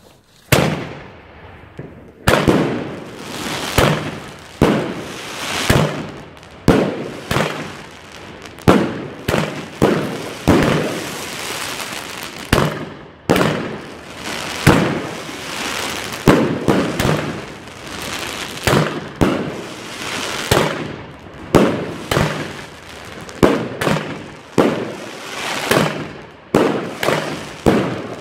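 Aerial fireworks shooting off one after another: sharp bangs about once a second, each trailing away before the next.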